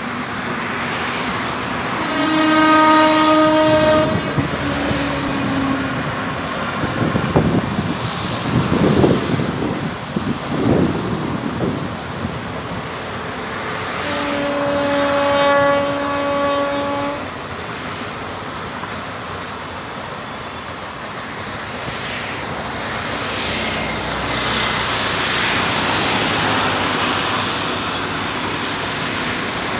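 Indian Railways express train passing: the locomotive sounds two long horn blasts, about two seconds in and again about fourteen seconds in, over the steady running noise of the coaches on the rails.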